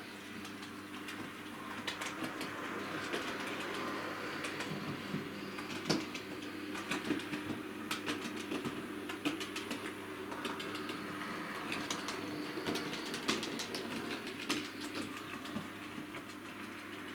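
Hornby OO gauge model locomotive running on a model railway track with its carriages: a steady electric motor hum with irregular clicking of wheels over track joints.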